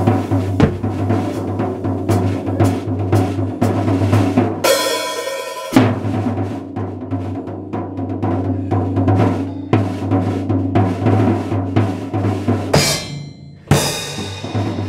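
Drum kit played with sticks in a fast solo: dense snare and tom strokes over steady bass drum. A bright, ringing stretch comes about five seconds in, and the playing thins out briefly near the end before a loud hit.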